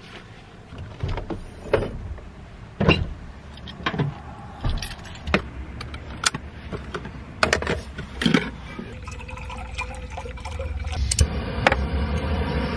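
Camping gear being handled at the back of a car: a string of knocks, clicks and clatters as items are moved. From about ten seconds in, a steady rushing noise sets in.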